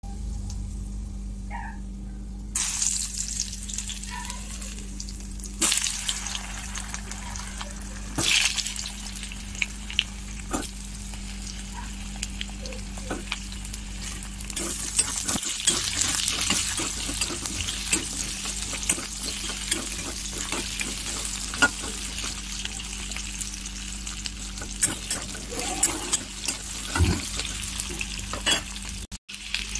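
Sliced potatoes frying in hot oil with mustard seeds and a dry red chilli in an iron kadai: a steady sizzle that starts a few seconds in. Frequent clicks and scrapes come from the pieces being stirred and turned.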